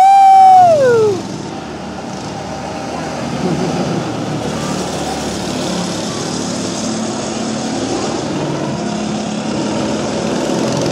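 Go-kart's small petrol engine passing close by, its pitch holding high and then dropping sharply as it goes past about a second in. After that the engines of several karts keep running further away around the track.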